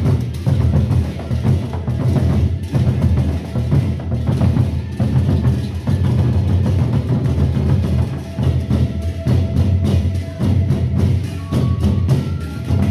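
Gendang beleq ensemble playing: several large double-headed Sasak barrel drums beaten together in a dense, driving rhythm of deep strokes. A few faint held tones sound briefly over the drumming in the second half.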